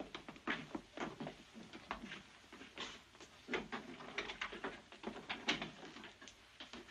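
Footsteps of several people walking across a hard floor: irregular knocks, a few a second, with a louder one about five and a half seconds in.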